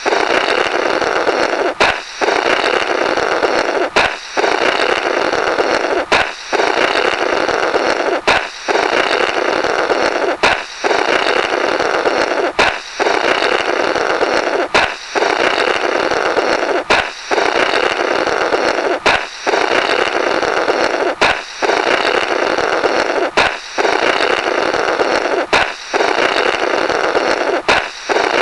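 Comical 'Blorrrt' balloon sound effect on a loop: a sharp balloon pop, then a long, fluttering raspberry of air blown through the burst balloon's rubber. It repeats about every two seconds, around thirteen times.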